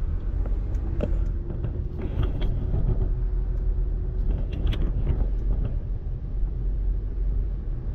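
Car driving along a road: a steady low engine and road rumble, with a few light clicks and rattles.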